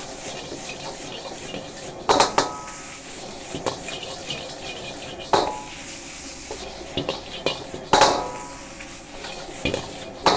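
Long-handled metal ladle scraping and tossing fried rice in a steel wok, striking the wok with a loud ringing clang about two, five and a half and eight seconds in and again at the end, with lighter clicks between, over a steady sizzle of the frying rice.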